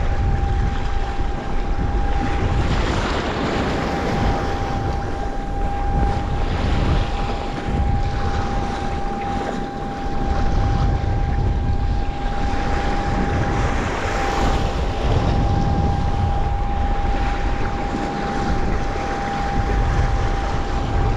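Wind buffeting the microphone over the rush and splash of breaking waves around a kayak in rough surf. A steady high tone runs throughout.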